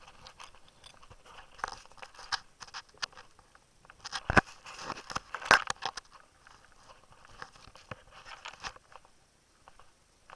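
Crunching and rustling of a hiker's footsteps through leaf litter and undergrowth on a forest trail, with scattered clicks and two loud sharp knocks about four and a half and five and a half seconds in.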